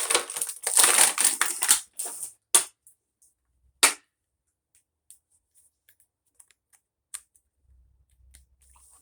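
Plastic and cardboard action-figure packaging crackling and crinkling for about two seconds as it is opened, then two sharp snaps and a few faint clicks.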